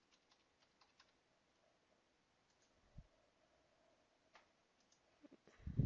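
Faint computer keyboard keystrokes and mouse clicks while logging in: a quick run of key taps at the start, then a few single clicks. A brief low rumble near the end is the loudest sound.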